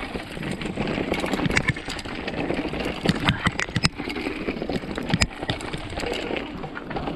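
Mountain bike riding fast over a rough dirt trail: a steady rumble with many sharp clicks and knocks as the bike rattles over the ground.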